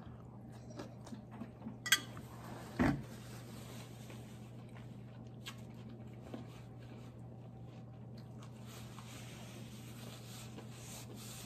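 A fork set down on a ceramic plate, a sharp click about two seconds in, followed by faint chewing and small mouth noises over a steady low hum.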